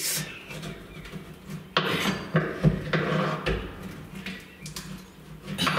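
Chisel and scraper levering and scraping in the gap at the edge of a tank inspection hatch lid held down by rubber sealant: irregular metal scrapes and clinks with several sharp knocks, as the lid stays stuck.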